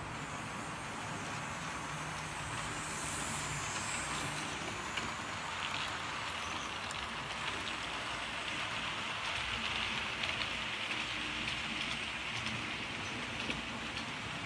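Model railway train running on the track: a steady rolling rattle of wheels on rail with a few light clicks, getting louder as the coaches pass close by partway through.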